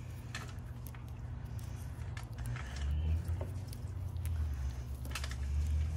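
Hands wrapping electrical tape around headlight wire connectors, with a few faint crackles and ticks from the tape. Under it a low rumble runs throughout and swells about halfway through, the loudest sound.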